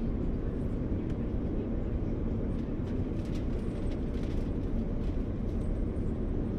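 New York City Q subway train running, heard from inside the car: a steady deep rumble, with a few faint clicks about halfway through.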